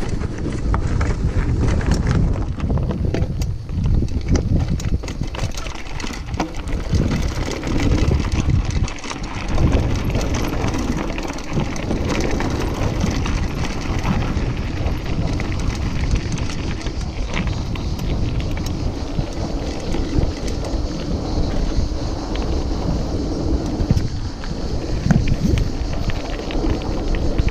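Mountain bike rolling downhill on a gravel and tarmac track, its tyres and frame giving scattered small clicks and rattles, under a heavy rumble of wind on the microphone.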